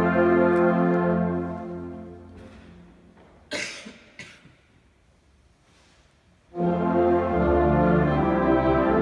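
Middle-school concert wind band of woodwinds and brass holding a sustained chord that dies away. After a pause broken by two brief noises, the band comes back in on a loud, full sustained chord about six and a half seconds in.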